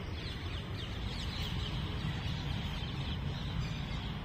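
Birds chirping in the trees, a quick series of short falling chirps, busiest in the first couple of seconds, over a steady low outdoor rumble.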